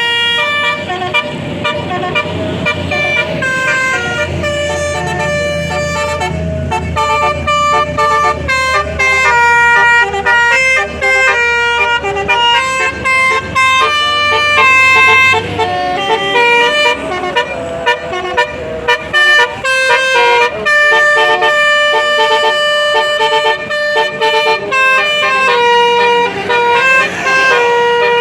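A bus's basuri multi-tone musical air horn playing a 'telolet' tune, a quick run of stepped notes changing pitch many times, over a bus engine's low running rumble that fades out about halfway through.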